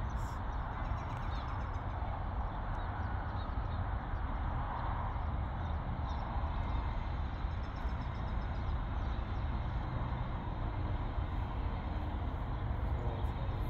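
Steady outdoor background noise with a strong low rumble, with no distinct event standing out.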